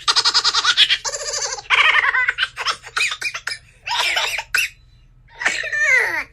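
Laughter: several runs of fast, pulsing giggles and laughs with short pauses between them, the last one sliding down in pitch.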